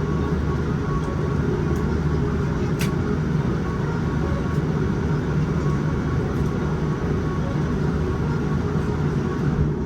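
Steady rumble and air rush inside a Boeing 787-9 airliner cabin with the aircraft stopped at the gate, ventilation running, with a few faint constant hums and a single light click about three seconds in.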